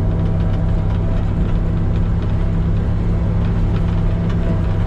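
Grain truck's engine running steadily with a low, even hum.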